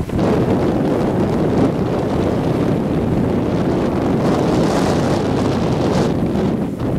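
Hurricane Irene's storm wind buffeting the camera microphone: a loud, steady rumble, with a hiss that swells about four seconds in and fades about two seconds later.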